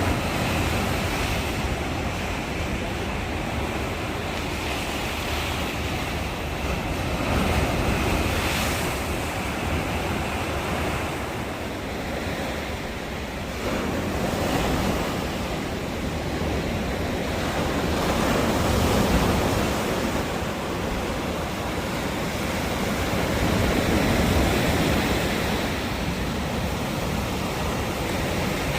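Ocean surf: waves breaking and washing up the beach, the rush of water swelling and easing every several seconds.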